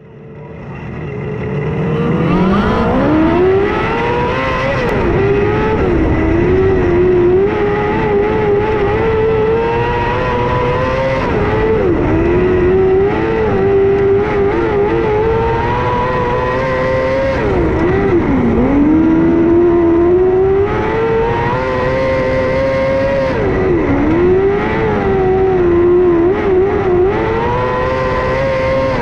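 Non-wing micro sprint car's motorcycle-derived engine at racing speed, heard onboard: it winds up hard about two seconds in and then runs near the top of its revs, the pitch dipping sharply every five or six seconds as the throttle comes off for the corners, then climbing again.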